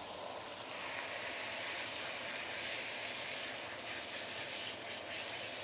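Marinated pork and vegetables frying in a hot oiled wok: a steady sizzle that swells about a second in.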